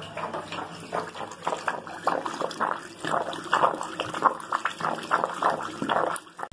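Water from a hot water tank being drained, running out of the end of a garden hose into a bathroom basin's plughole and splashing unevenly.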